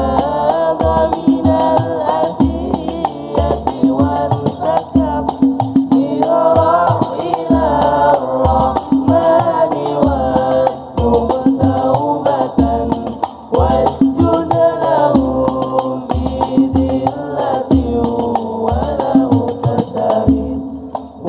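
Al-Banjari hadrah ensemble: several male voices singing sholawat together over a driving rhythm of terbang frame drums.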